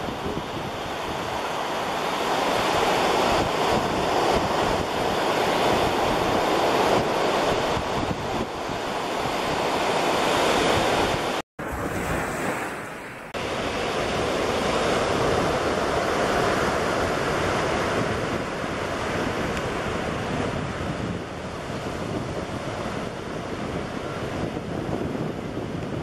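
Surf washing onto a sandy beach, a steady rushing noise, with wind rumbling on the microphone. The sound cuts out for an instant a little under halfway through, then carries on.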